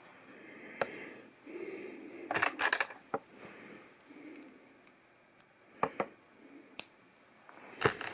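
Plastic LEGO pieces clicking and clattering as they are handled and pressed together: scattered sharp clicks over soft rustling, with a quick cluster about two and a half seconds in and a loud click near the end.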